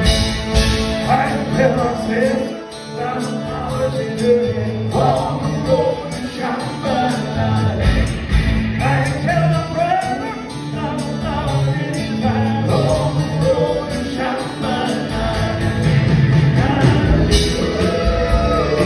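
Live rock band playing, with electric guitars, bass and drums under men singing lead and harmony vocals.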